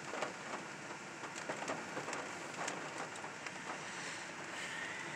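Rain pelting a parked truck's windshield and roof, heard from inside the cab: a steady hiss of rain dotted with many sharp drop ticks.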